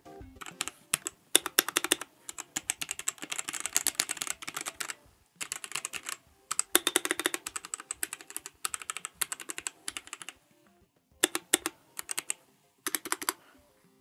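Red linear mechanical key switches of a GamePower Warlock compact keyboard being typed on fast, close to the microphone, in several bursts of rapid key clacks with brief pauses between them. It is not a very loud keyboard.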